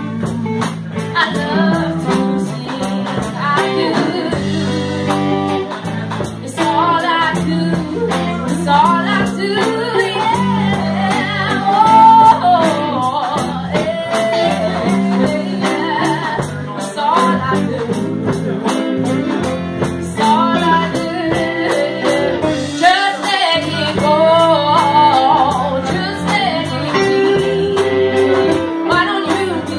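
Live band playing, with a woman singing the lead melody over electric guitars and a steady drum beat ticking on the cymbals.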